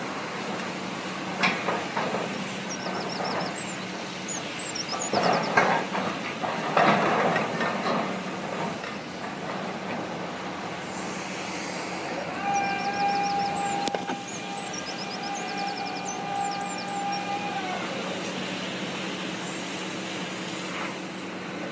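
Heavy construction machinery, a piling rig drilling for the seawall, running with a steady hum. Several louder noisy bursts come in the first eight seconds, and a steady whine holds for about five seconds in the second half.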